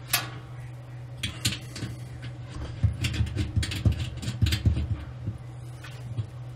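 Scattered small clicks and ticks of fingers handling a brass LP orifice, hand-threading it onto the gas range's broiler burner fitting, with a run of low thuds about three to five seconds in. A steady low hum sits underneath.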